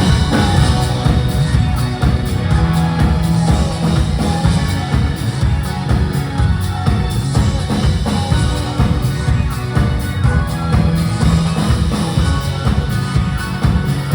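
Live rock band playing loudly, heard from the audience: a steady drum-kit beat with heavy bass and guitars filling the hall.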